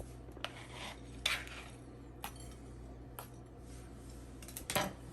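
A metal utensil clinking and scraping against a dish: about five light, separate clinks spread out, the loudest near the end.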